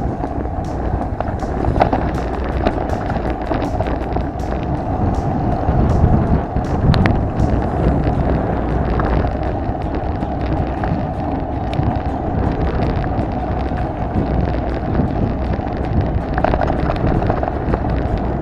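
Off-road vehicle driving over a rough track: a steady engine drone and rumble with frequent knocks and rattles.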